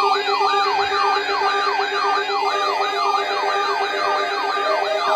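Weather radio receivers sounding their alert alarms for a required weekly test: a siren-like rising whoop repeating about two and a half times a second, over several steady and on-off electronic beeps.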